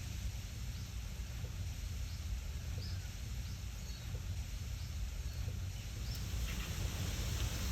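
Wind blowing through trees, leaves rustling steadily over a low wind rumble on the microphone. A few faint, short high chirps come through now and then.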